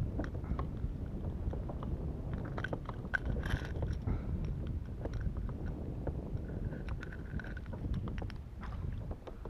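Low wind rumble on the microphone, with scattered small clicks and rattles of metal pliers and a hard-plastic lure being worked out of a small fish's mouth.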